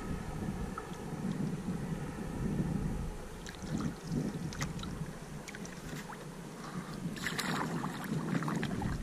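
Wind buffeting the microphone while water laps and splashes against the hull of a small paddle craft at sea, with scattered drips and a louder splash about seven seconds in.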